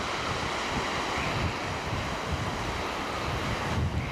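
Sea waves washing on a rocky shore, a steady rushing, with wind buffeting the microphone in low rumbles.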